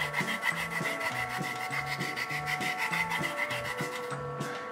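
Rough rasping and rubbing from hand work with kitchen tools during cake baking, over background music with a steady beat and bass line.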